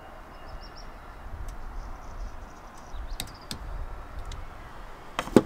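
Light clicks of a torque wrench working a bolt in a PETG 3D-printed test piece, then two sharp clicks near the end, over a low rumble.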